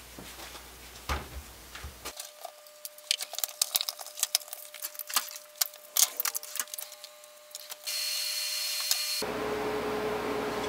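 Metal hand tools clinking and clattering as they are picked up and set down on a workbench, in a quick irregular run of small knocks. Near the end a steady hiss and hum comes in.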